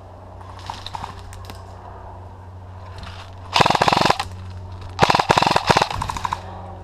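Airsoft electric rifle (AEG) firing on full auto: a short burst about three and a half seconds in, then a longer string of bursts about a second later.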